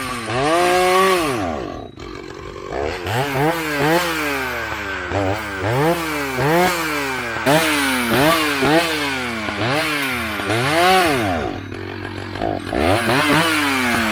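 Vintage Husqvarna 2100CD two-stroke chainsaw revving up and dropping back over and over, about once a second, with a brief dip in speed about two seconds in. The saw is running poorly, a problem the owner says could be a number of things.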